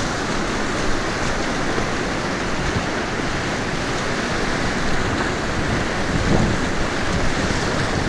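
Steady rush of the Thompson River's whitewater rapids, close around an open canoe running through breaking waves.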